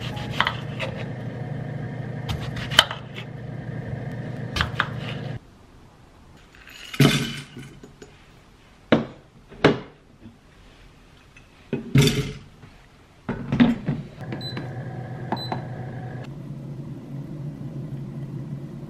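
Glass electric tea maker heating water to a boil, a steady hum and bubbling rumble. It drops away for several seconds in the middle, where a few sharp clicks and knocks of kitchen prep sound, then comes back.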